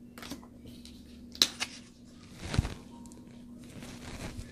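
Tarot cards being handled and laid down: two sharp clicks about a second and a half in, then a duller thump with a brushing sound near the middle.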